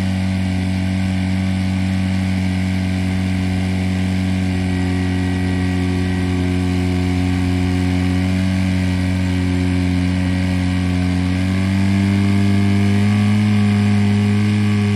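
Portable fire pump engine running hard and steady as it drives water through the laid attack hoses to the nozzles; its pitch rises slightly and it grows a little louder about twelve seconds in, as the jets come on.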